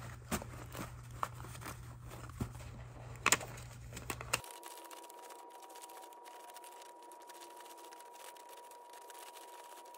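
Paper dollar bills being counted by hand: crisp snaps and rustles as notes are flicked off a stack, about a dozen sharp ones in the first four seconds, then fainter handling of the bills.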